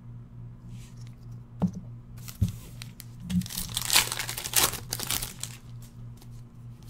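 Foil wrapper of a sealed football card pack being torn open and crinkled, the crackle densest in the middle. It comes after a few light taps of cards being set down on the table.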